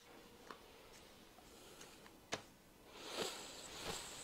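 Faint clicks in a quiet room, one sharp click a little past two seconds in, then soft rustling over the last second or so.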